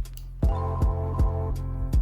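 Background music with a steady beat of low drum hits under sustained chords.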